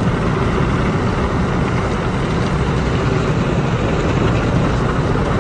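Automatic car wash working over a car, heard from inside the cabin: a steady rush of water spray and scrubbing brushes against the glass and body.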